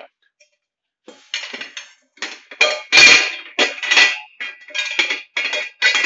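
Dishwasher wire racks and dishes clattering and clinking as they are handled: a run of irregular metallic strikes with some ringing, starting about a second in. The loudest is a knock about three seconds in.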